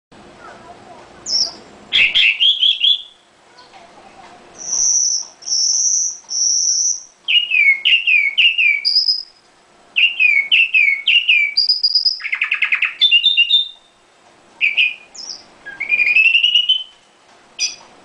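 Red-billed leiothrix (Chinese nightingale) singing a loud song of varied clear whistled phrases with short pauses between them. The phrases include three long high whistled notes in a row and runs of quick down-slurred notes.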